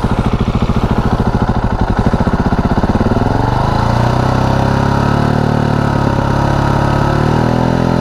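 Husqvarna 701's single-cylinder four-stroke engine, breathing through a Wings exhaust with its large baffle fitted, idling with a steady beat. About three seconds in it is revved up and held steady at around 5,000 rpm for a sound-level test.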